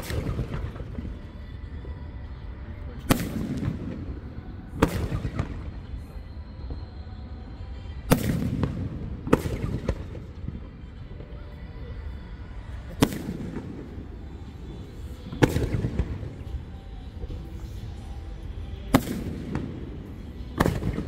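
Aerial firework shells bursting overhead, about nine sharp bangs spaced one to four seconds apart, each trailing off in a low rumbling echo.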